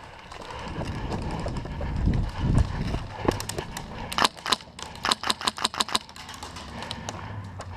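Airsoft gun firing a string of about a dozen sharp single shots, some in quick pairs, starting about three seconds in after a low muffled rumble of movement.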